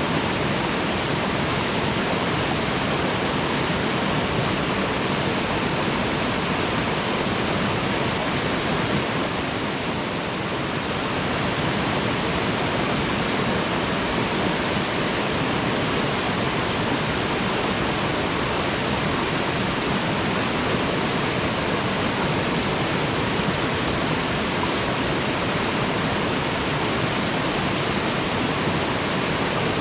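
Waterfall: a steady, dense rush of falling water, with a slight dip in level about ten seconds in.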